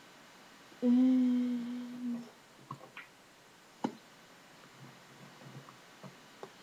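A woman's voice holds a drawn-out, hummed 'aaand' for over a second, then a few light clicks and a sharp knock as plastic lotion bottles are handled and set down.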